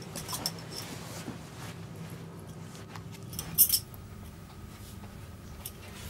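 Light rustling and small metallic clinks over a low steady hum, with one short, sharp jingle about three and a half seconds in.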